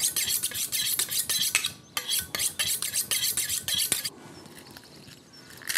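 A knife being honed on a sharpening steel: quick, even metallic scraping strokes, about four a second, with a brief pause about two seconds in; the strokes stop about four seconds in.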